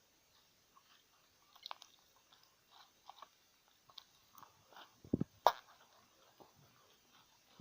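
Slime being kneaded and squeezed by hand, making small sticky clicks and crackles. There is a louder thump and pop about five seconds in.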